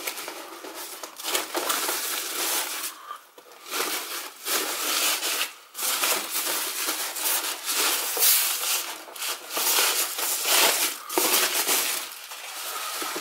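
Thin low-density polyethylene protective bag crinkling and rustling as it is pulled and bunched off a monitor, coming in repeated swells with a couple of brief pauses.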